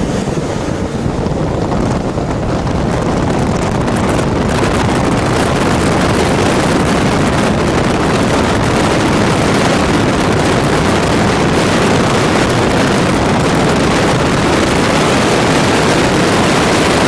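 Heavy wind buffeting the microphone through an open vehicle window at highway speed: a loud, steady rush, growing fuller about four seconds in, that covers the engine sounds.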